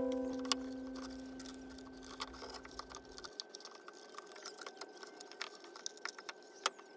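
The last strummed chord of a gourd-bodied ukulele rings out and fades away over about three seconds. After it come faint, scattered clicks and ticks.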